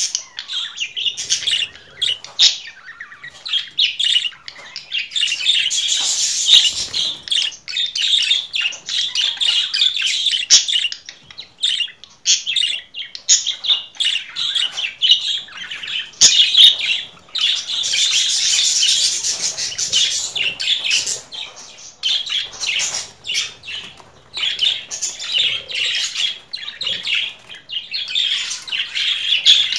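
Budgerigars chattering: a fast, nearly unbroken stream of high chirps and squeaky warbles, with a few short pauses.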